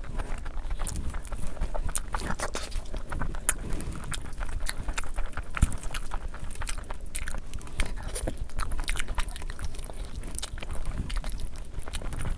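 Close-up eating sounds of a person chewing a meal of curry and rice: wet, irregular mouth clicks and smacks.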